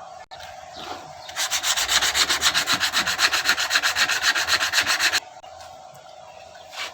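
Rapid rhythmic sanding or rubbing strokes, about ten a second, starting about a second and a half in and stopping abruptly after about four seconds.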